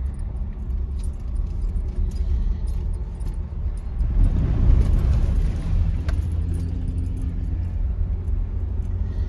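Jeep driving on a rough dirt road, heard from inside the cab: a steady low rumble of engine and tyres with loose items rattling. Near the middle a rush of noise swells for about two seconds as the Jeep splashes through a water crossing, throwing up spray.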